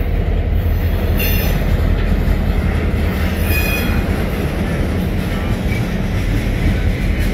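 A Union Pacific freight train's lumber-loaded centerbeam flatcars roll past at a grade crossing, a steady rumble of steel wheels on the rails. Brief high wheel squeals come about a second in and again around three and a half seconds in.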